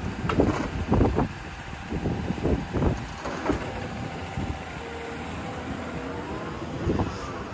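Komatsu PC210LC-11 crawler excavator running, with repeated knocks and clunks from the machine and a brief whine about five seconds in.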